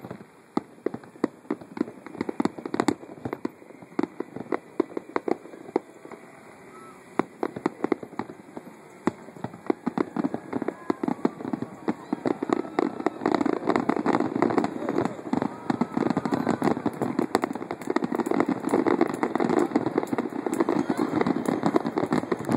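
Aerial fireworks bursting and crackling in rapid, overlapping bangs and pops. The bangs grow denser and louder from about halfway through, into an almost unbroken barrage.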